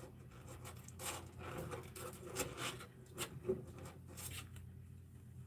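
A series of short scratchy rubbing and scraping sounds over a low steady hum, stopping about four and a half seconds in.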